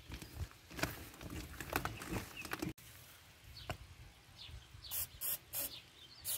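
Rustling and clicking as a corrugated RV sewer hose and its plastic fittings are handled and taken apart, then several short hissing bursts of aerosol cooking spray onto the sewer outlet valve near the end.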